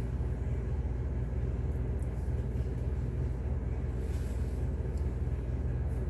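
A steady low hum that keeps an even level throughout, with no distinct events over it.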